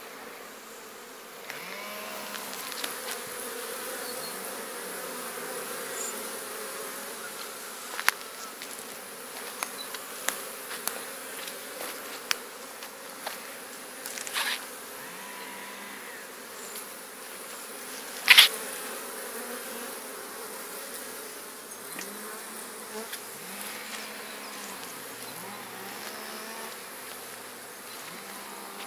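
Honeybees buzzing at a wooden hive entrance, with single bees flying close past in rising and falling hums over the colony's steady hum. A few sharp clicks or knocks cut through, the loudest about two-thirds of the way in.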